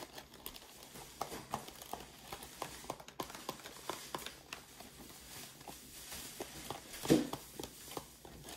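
A KFC cardboard chicken box being handled close to the microphone: a run of light taps and knocks, with one louder thump about seven seconds in.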